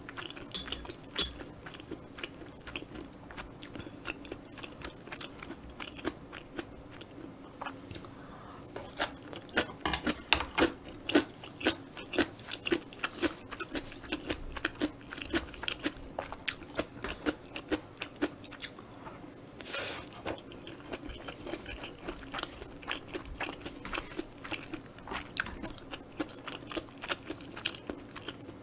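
Close-miked chewing of a mouthful of kimchi fried rice and kimchi: a dense run of wet clicks and crunches, loudest about ten seconds in.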